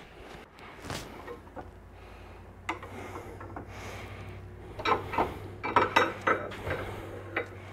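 Metal clinks and knocks of a Magpul armorer's wrench on an AR-15's aluminum barrel nut in a vise, as the nut is loosened and retightened to seat the barrel. The clinks come sparsely at first, then in a quick cluster a few seconds in.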